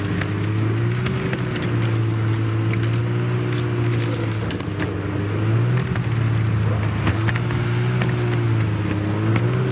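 Snowmobile engine running steadily while towing a sled, its revs drifting up and down a little, with scattered knocks and rattles.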